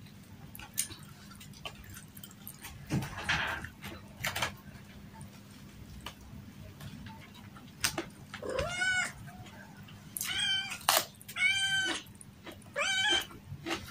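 A pet cat meowing four times in the second half, each call bending in pitch, over scattered clicks and chewing sounds of someone eating with her hand.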